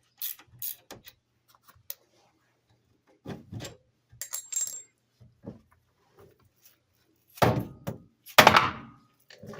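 Metal clinks and knocks of hand tools working on a Polaris RZR's front suspension, ending in two heavier knocks about a second apart, in keeping with tapping the lower A-arm's ball joint free of the knuckle after the lower pinch bolt is out.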